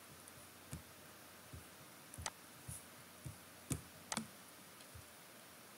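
Computer mouse clicking: several faint, sharp clicks at irregular intervals.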